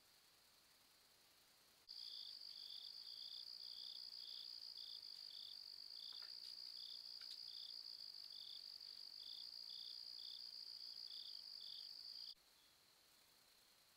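Night insects trilling: a steady high-pitched trill over a lower chirp pulsing about twice a second. It starts abruptly about two seconds in and cuts off suddenly near the end.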